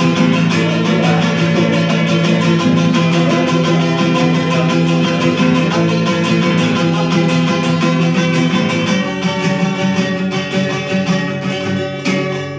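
Acoustic guitar and a long-necked folk lute strummed fast together, playing a song that thins out and fades in its last few seconds.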